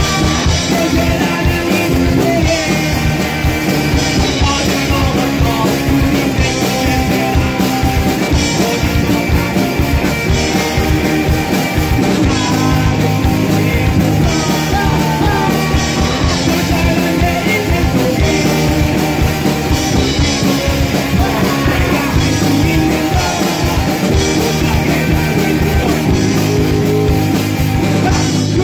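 A punk rock band song playing loud and steady, with a full band and vocals singing.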